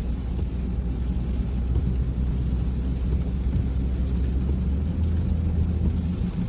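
Steady road noise inside a moving car on a wet highway: a low rumble of engine and tyres with an even hiss of rain and spray.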